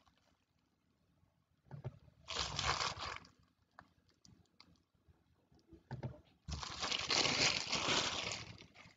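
Plastic shrink wrap crinkling as it is torn and peeled off a cardboard game box, in two bursts: a short one about two seconds in and a longer, louder one from about six and a half seconds.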